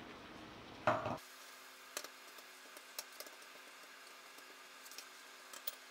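Faint sizzling of vegetables frying in a wok, with a few light clicks of a utensil against the pan as they are stirred. A short louder sound comes about a second in.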